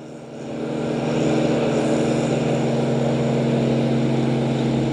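Engine of tree-removal machinery running at a steady, unchanging pitch, swelling in over the first second and then holding.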